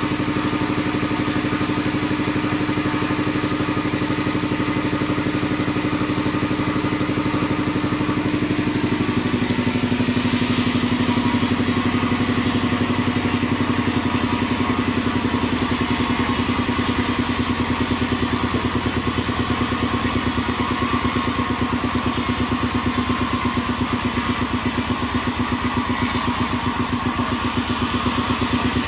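Modified 48-inch band sawmill running steadily with a machine hum, its pitch dropping a little about nine seconds in.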